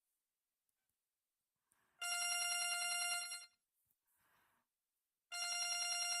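LG enV cell phone playing a ringtone that imitates a telephone bell through its speaker: two rapid trilling rings about a second and a half long, the first about two seconds in and the second a little after five seconds in.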